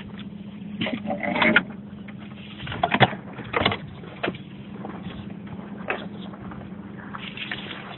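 Irregular knocks and scrapes as a landing net holding a freshly caught sea bream is handled aboard a boat, over a steady low hum.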